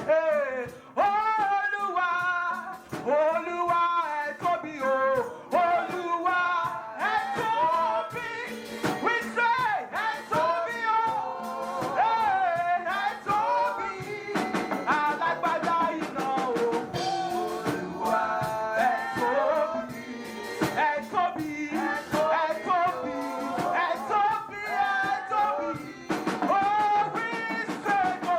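Church worship music: sung melody over a drum kit, with percussion keeping a steady beat.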